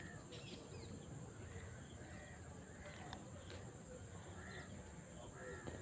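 Faint outdoor ambience with a bird giving short repeated calls, roughly one a second, and a couple of faint clicks.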